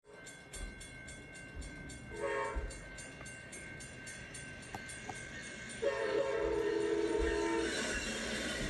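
Amtrak P42DC diesel locomotive passing and sounding its multi-chime air horn: a short blast about two seconds in, then a longer blast of about two seconds near the six-second mark. Fast regular ticking runs under the first half.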